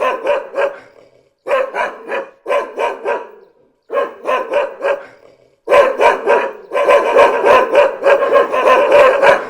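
Dog barking in short runs of about three barks each, with brief silent gaps between runs. From a little past halfway the barking goes on without a break, denser and a little louder.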